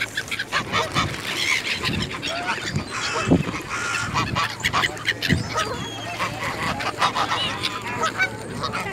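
A group of greylag geese honking over and over, with many short calls overlapping.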